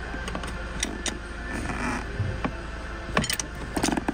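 Hand tools clicking and tapping against metal parts of the engine at irregular intervals, with a short scrape about two seconds in and a quick run of clicks near the end, over a steady low hum.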